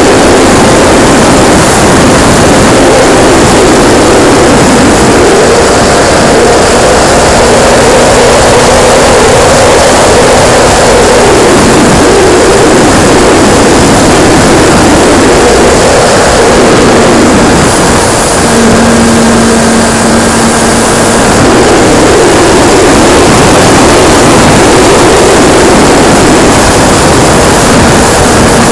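Radio-controlled P-51D Mustang model airplane in flight, heard from its onboard camera: the motor and propeller running with heavy wind rushing over the microphone, the propeller's note shifting in pitch now and then with throttle.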